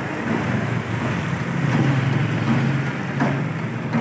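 Steady engine hum of street traffic, with a thin stream of milky drink being poured from a plastic mug into a large plastic cooler.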